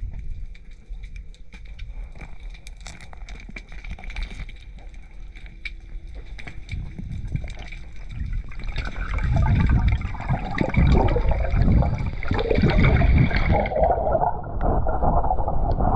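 Underwater sound picked up by a diver's camera: scattered crackling clicks over a low rumble, then, from about halfway, a much louder muffled rushing and churning of water as the diver swims up toward the surface.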